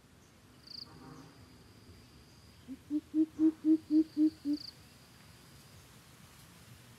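A coucal giving a run of about eight deep hoots, about four a second, starting just before three seconds in. A steady high insect trill runs behind it.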